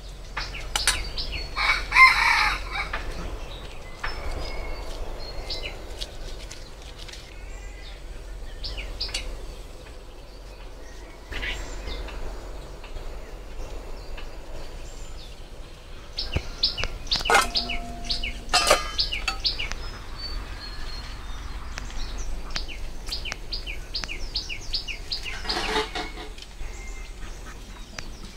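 Chickens calling, loudest about two seconds in and again near the end, over small birds chirping. A few metallic clinks ring out near the middle.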